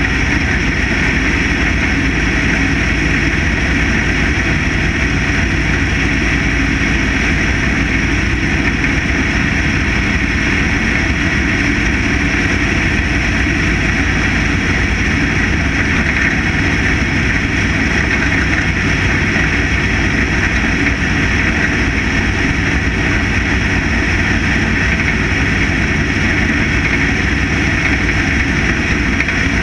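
Factory stock dirt-track race car's engine running hard at racing speed, heard from inside the cockpit: a loud, steady drone with no breaks.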